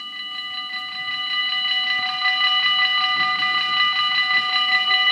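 Dutch level-crossing warning bells ringing in a fast, even rhythm as the crossing activates for an approaching train. They swell over the first two seconds, then ring steadily and loud.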